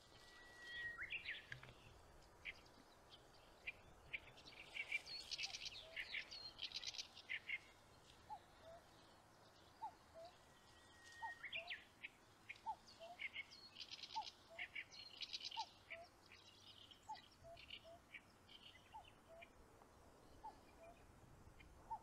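Faint wild bird song. One songbird holds a long even whistle and then runs into a quick flourish, twice. Other birds chirp around it, and from about a third of the way in a low two-note call repeats roughly once a second.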